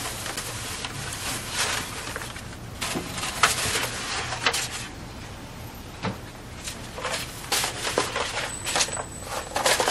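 Rustling and soft, irregular knocks of objects being handled, like doors or cupboards opening and closing, over a low steady hum.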